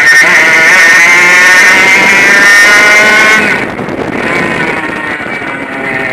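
100cc two-stroke kart engine heard from the seat, rising in pitch under full throttle for about three and a half seconds, then dropping off sharply as the throttle is lifted, before climbing again.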